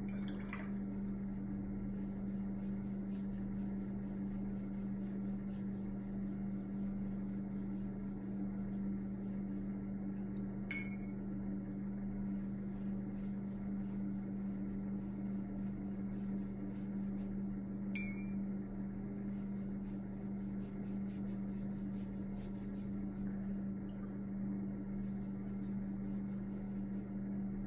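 A steady low hum, as from a running appliance or fan in the room, with two short clinks about 11 and 18 seconds in.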